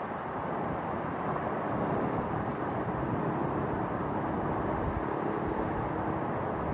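Steady rumble of distant engines, road traffic and aircraft, with a faint held hum from about two seconds in until near the end.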